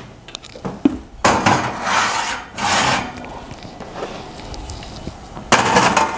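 Scraping and rubbing sounds of ceramic ramekins of pot pie being handled, slid and set down while they go into the oven, in several short noisy scrapes about a second in and again near the end.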